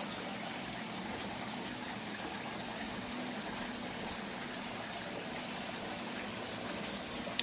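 Steady running water, an even trickling and splashing that does not change.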